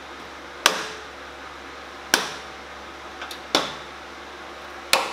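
Plastic push-in clips being snapped by hand into a pickup truck's rear bumper. There are four sharp snaps about a second and a half apart, with a couple of faint ticks between the third and fourth.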